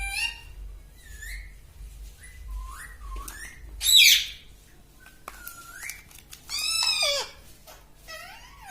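Pet ring-necked parakeet giving a string of short whistled calls that slide up and down in pitch. The loudest is about four seconds in, and a longer arching call that falls away comes near seven seconds.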